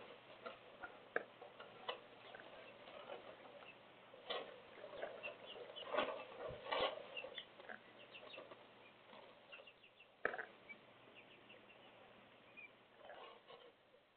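Faint, irregular tapping and ticking of raindrops hitting a window pane, with a cluster of louder taps about halfway through.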